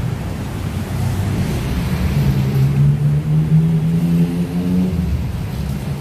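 Street traffic noise with a motor vehicle engine running close by. Its hum rises slightly in pitch from about two seconds in and fades out near the five-second mark.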